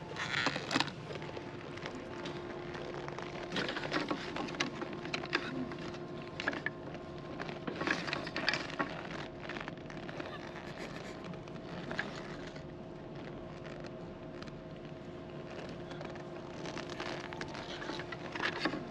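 Wooden ema plaques clicking and clacking against one another while one is handled and tied by its cord onto a rack of hanging plaques. The clacks come in small clusters, over a steady background hum.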